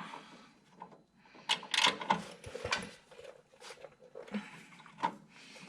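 Scattered clinks and knocks of hand tools on metal during shock work on a car's rear suspension, with a cluster of sharp ones in the middle and a few more near the end.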